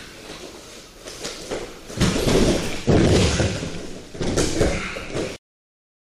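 Grapplers' bodies thudding and scuffling on gym mats: a run of loud, noisy impacts and scrambling, in three bursts from about two seconds in, then the sound cuts off suddenly.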